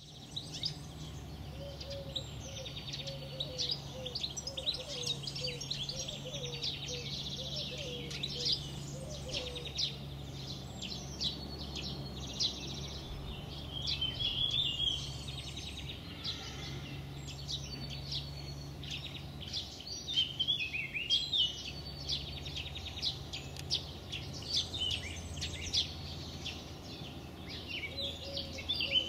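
Garden birdsong: several songbirds chirping and singing over each other throughout. A lower note repeats about twice a second for the first third and again near the end. A steady low hum runs underneath.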